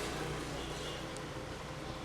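Street traffic noise: a motor vehicle engine running, fading slightly and then holding steady.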